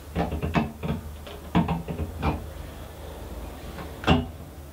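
Clacks and knocks of a wooden toilet seat and its hinge fixings against a ceramic toilet bowl as the seat is fitted, about half a dozen separate knocks with the loudest about four seconds in, over a steady low hum.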